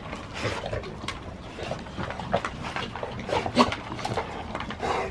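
American bully dogs eating dry kibble from a plastic bowl: irregular crunching and chomping, a quick run of sharp clicks.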